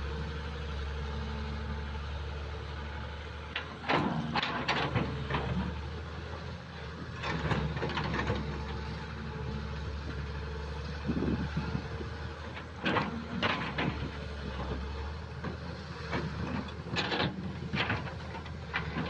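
Diesel engine of a Kobelco SK07 tracked excavator running steadily while it digs, with four short bursts of metallic clanking and scraping from the bucket and arm working through mud and debris.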